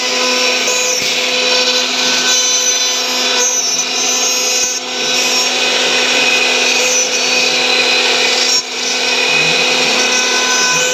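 CNC router spindle with an end mill cutting grooves into a wooden ring turned on a 4-axis rotary axis: a steady whine over the rasp of the cut. It dips briefly about five seconds in and again near the end.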